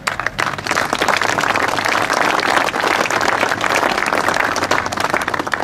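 Audience applauding, many hands clapping densely, dying away at the very end.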